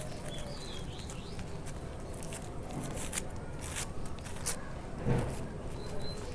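Thin polythene grafting strip crinkling and rustling in short bursts as it is wrapped tightly around a graft joint. A bird chirps faintly near the start.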